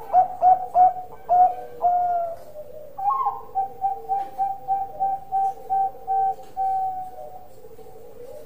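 Zebra dove (perkutut, Bangkok line) singing its cooing song: two phrases of quick, repeated short coo notes, each opening with a rising note and ending on a longer one, the second phrase starting about three seconds in.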